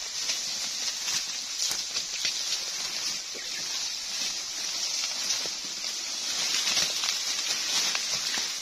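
A steady high-pitched insect chorus droning in tropical forest, with grass and leaves rustling and brushing as people push through dense undergrowth on foot.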